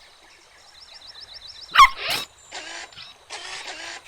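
Cartoon sound effects: a quick run of short electronic chirps, then a single sharp puppy bark, followed by a few short hissy whooshes of a gadget powering up.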